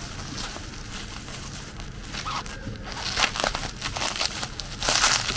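Bubble wrap being unwrapped by hand: a run of irregular plastic crackles that gets busier and louder in the second half.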